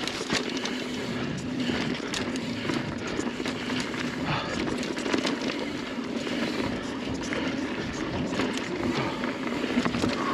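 Mountain bike ridden fast down a dirt singletrack: steady tyre noise on the dirt, with frequent rattles and knocks from the bike over bumps.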